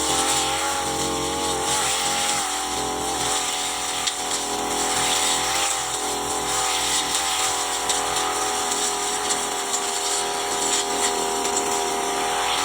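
Brush cutter engine running steadily under working load, its pitch wavering slightly in the first couple of seconds.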